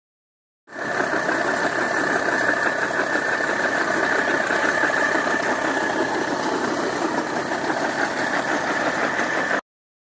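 Vintage tractor engine running steadily under load, turning a long flat drive belt that powers a threshing machine. The sound starts abruptly under a second in and cuts off suddenly just before the end.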